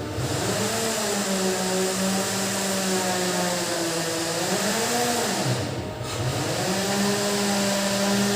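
A small electric motor running with a hiss. Its hum rises in pitch to a steady note, sags away about five seconds in, then climbs back and holds steady again.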